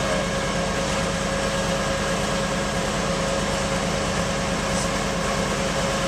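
Amphibious ATV engine running steadily close by, an even, unchanging drone with a constant hum and whine.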